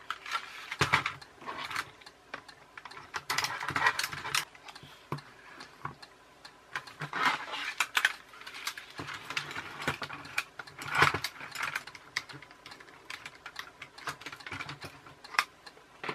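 Irregular clicks, knocks and rattles of the hard plastic wheels, chassis and gearbox of a New Bright RC Land Rover toy as it is handled and taken apart with a screwdriver. There is a louder knock about eleven seconds in.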